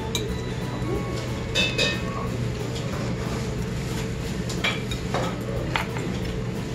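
Metal chopsticks clinking against dishes now and then, about six short clinks, over a steady low hum of the restaurant.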